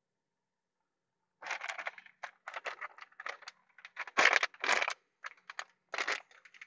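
Plastic tortilla bag crinkling and rustling as it is opened and handled. Short, irregular crackles start about a second and a half in and are loudest just past the middle.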